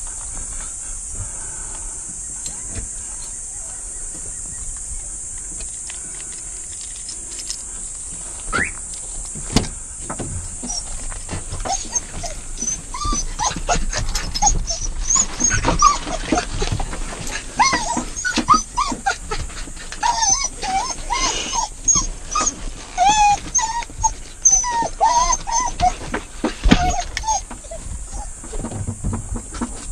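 Hunting dogs giving short, high yelps in quick series, starting about twelve seconds in and dying away near the end, mixed with crackling in the brush.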